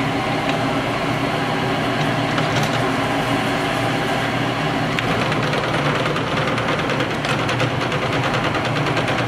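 29 x 80 inch Monarch engine lathe running with a steady mechanical hum from its drive. About halfway through, a fast ticking rattle joins in for a few seconds while the controls on the carriage apron are worked.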